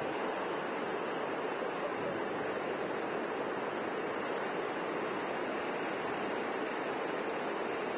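Steady rush of water as a GMC pickup truck ploughs through floodwater over a road, its wheels throwing up spray.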